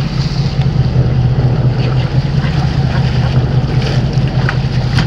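Boat engine running with a steady low hum, with wind on the microphone and water splashing as a hooked giant trevally thrashes at the boat side.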